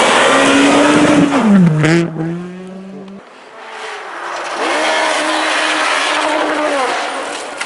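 Rally car engines on a snowy stage. The first car runs hard, its pitch dropping sharply about a second and a half in, with a sharp knock near two seconds. After an abrupt break, a second car's engine holds a steady high note with tyre and gravel noise.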